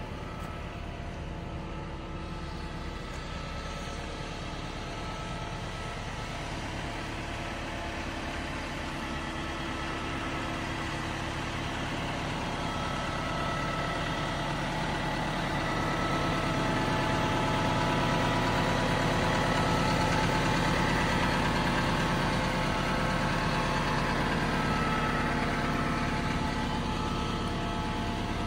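CAT M315F wheeled excavator's diesel engine idling steadily, growing gradually louder over the first two-thirds and easing slightly near the end.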